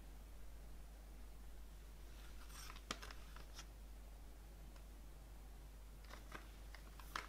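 Plastic CD jewel case being handled and turned in the fingers: faint rubbing and light clicks in two short clusters, about two seconds in and again about six seconds in, each with one sharper plastic click, over a low steady hum.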